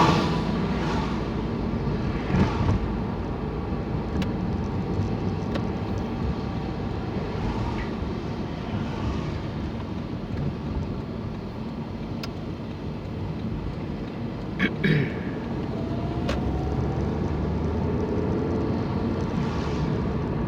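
Car interior while driving off from traffic lights: steady engine and road noise, with a couple of short knocks.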